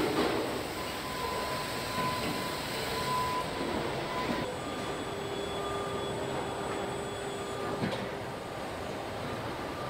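Steady hum and hiss of car-factory machinery, with faint steady whining tones from moving equipment; the tones change about four and a half seconds in.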